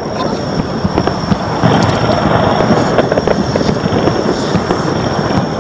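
Fireworks going off: dense, continuous crackling and popping from bursting shells and a red fountain.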